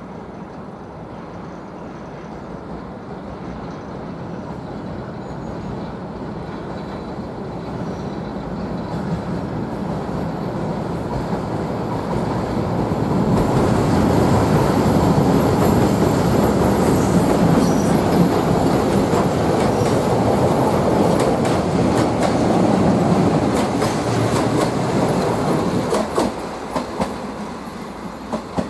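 DPL1 diesel multiple unit crossing a steel truss railway bridge: a heavy rumble of wheels on the steel spans that grows steadily louder, is loudest about halfway through, then eases, with a few sharp clacks near the end.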